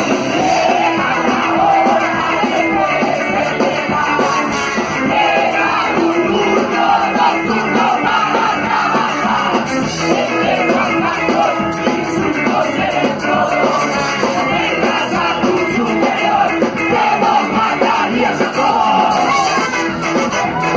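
A live band playing a fast rock song with a steady driving drumbeat, electric guitar and shouted singing.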